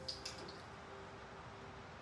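Quiet lull with only a faint, steady background hiss and no distinct sound.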